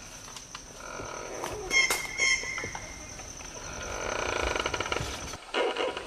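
Forest ambience: a steady high-pitched insect drone, with a couple of short bird chirps about two seconds in and light rustles; the drone cuts off suddenly near the end.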